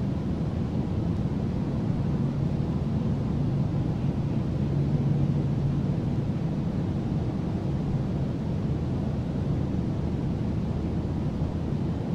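Steady low rumble of distant motor traffic, with a faint hum and a faint bird chirp near the end.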